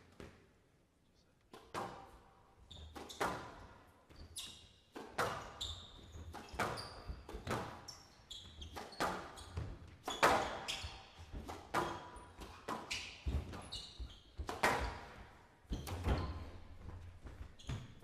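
Squash rally: the ball is struck by rackets and hits the court walls again and again at an uneven pace, each hit ringing briefly in the large hall. The hits start about a second and a half in.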